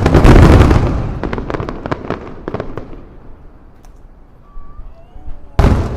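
Aerial firework shells bursting with loud booms, followed by a rapid run of sharp cracks that fades over about three seconds; after a lull, another loud boom shortly before the end.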